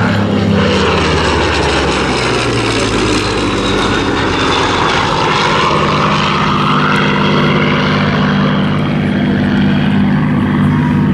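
Supermarine Spitfire's V12 piston engine running steadily during a display pass, its pitch slowly shifting as the aircraft banks and turns.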